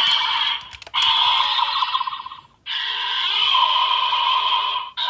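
Sound effects for a homemade Ultraman Z medal, played back through a toy's speaker in three stretches separated by short breaks.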